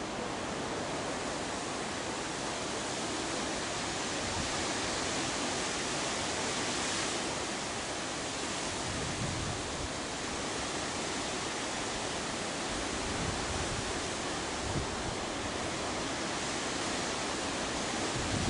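Wind: a steady, even hiss with a few soft low gusts buffeting the microphone.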